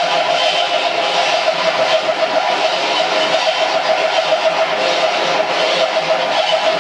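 Live noise-rock band playing a dense, unbroken wall of heavily distorted sound over a steady drone.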